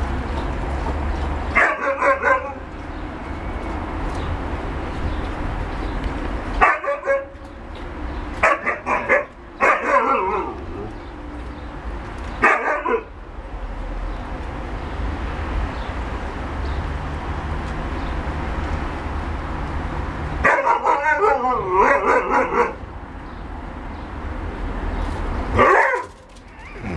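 A Siberian Husky and an Alaskan Malamute at play, barking and yipping in short bouts, about eight in all, with the longest bout, about two seconds, some two-thirds of the way through.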